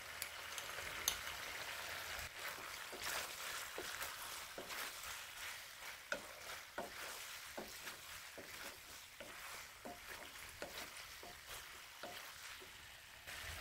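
Wooden spatula stirring penne pasta in sauce in a metal kadai, with irregular soft scrapes and clicks against the pan, over a faint steady sizzle from the pan on the heat.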